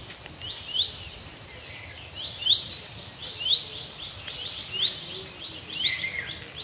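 A bird giving short rising chirps: a few spaced ones, then from about two seconds in a quick run of about four a second.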